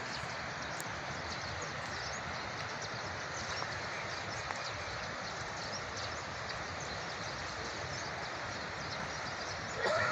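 Steady rushing outdoor noise with faint scattered ticks, and a short, louder sound with a pitched edge just before the end.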